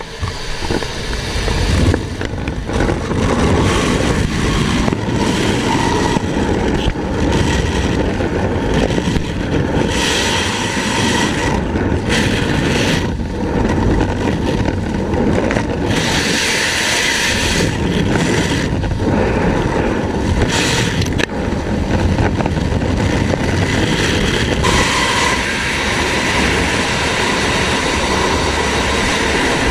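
Freefall wind buffeting a skydiver's helmet-mounted camera microphone: a loud, steady rush of noise that swells and fades as the body shifts in the airstream.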